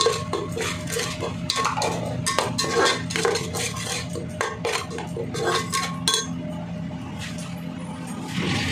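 A spoon scraping and clinking against a cooking pan, stirring freshly added spice powders into a frying paste. The scraping stops about six seconds in, leaving a steady low hum.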